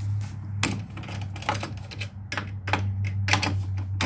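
Ratcheting socket driver clicking in irregular short runs as it turns a nut on a terminal-block stud, under a steady low hum.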